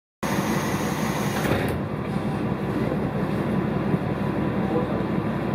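Diesel railcar engine idling at a standstill, a steady low rumble heard inside the passenger cabin. A high hiss over it stops about a second and a half in.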